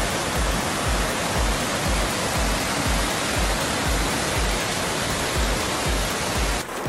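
Floodwater rushing loudly down a street, a dense even noise that stops shortly before the end. Under it runs background music with a steady low beat.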